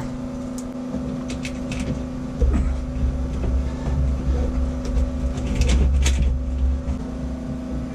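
Stainless worm-drive hose clamps being fitted and tightened on a rubber marine exhaust hose: scattered metallic clicks and knocks, with a deep rumble through the middle few seconds, over a steady low hum.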